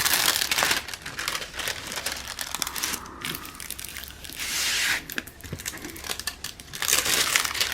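Small plastic bags of diamond-painting drills crinkling as they are handled and sorted, in uneven bursts of crackling.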